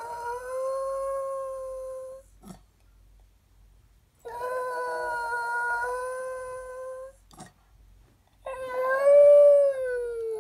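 West Highland White Terrier howling: three long drawn-out howls with short pauses between, the pitch wavering slightly. The last howl is the loudest and rises and then falls away.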